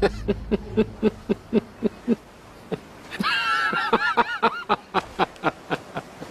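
Hearty laughter, a run of short rhythmic 'ha' pulses at about four a second, with a higher-pitched stretch of laughing for a second or so about three seconds in.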